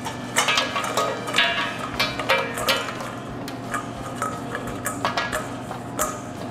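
Croutons tipped out of a stainless steel mixing bowl, rattling and clinking against the metal as they slide out and drop onto a salad platter. There is a dense run of clicks for the first few seconds, then only scattered ones.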